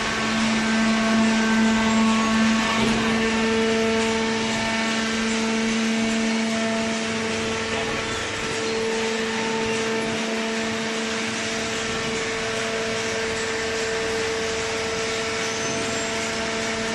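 Automatic hydraulic cardboard baler running: a steady machine drone with a constant whining hum over mechanical noise.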